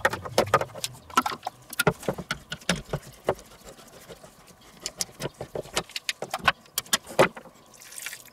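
Hand-crank can opener clicking in an uneven run of sharp ticks as it is worked around the rim of a metal food tin. Near the end, juice poured from the opened tin runs softly into the bowl.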